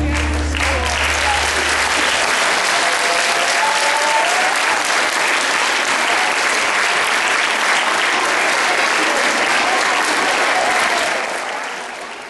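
The last notes of the dance music stop within the first second or two, then an audience applauds steadily, dying away near the end.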